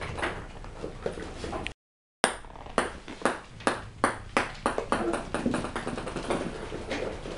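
A puppy scrabbling and rustling at a mattress, then a brief dead gap. After the gap a small ball bounces on a hardwood floor, each bounce a sharp ping coming quicker than the last, and puppies' claws patter on the boards as they chase it.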